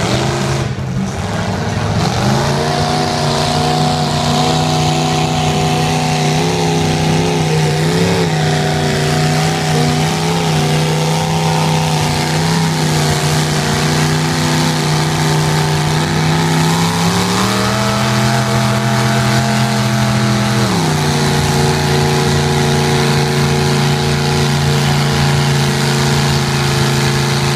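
Lifted pickup truck's engine pulling under load through deep mud and water, running at steady revs. About 17 seconds in the revs climb and hold higher for a few seconds, then drop abruptly back.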